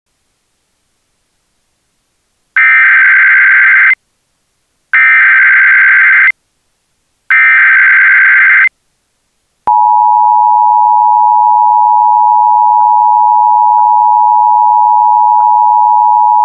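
Emergency Alert System signals. Three short bursts of SAME header data tones come about a second apart, encoding the alert's type, area and times. They are followed, about ten seconds in, by the steady two-tone EAS attention signal that warns an alert message is about to be read.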